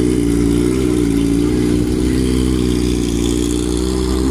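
A motor vehicle engine running close by, its pitch wavering slightly up and down over a steady low hum.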